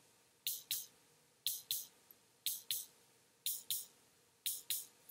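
Snuggle Puppy's battery-powered heartbeat module pulsing: a soft double thump, like a lub-dub, about once a second, five beats in a row.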